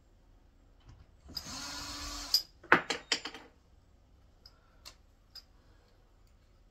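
A cordless screwdriver runs for about a second, driving a screw into wood. It is followed by a quick cluster of loud, sharp knocks and a few faint clicks.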